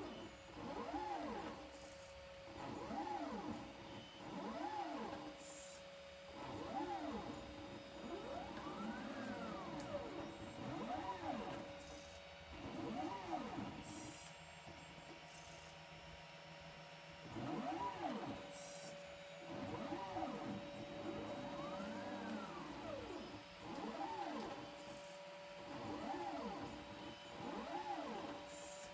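Niryo One six-axis robotic arm's stepper motors whining as the joints move, the pitch rising and falling with each speed-up and slow-down, over and over through a repeated pick-and-place cycle. A steady hum runs underneath, with a few faint ticks.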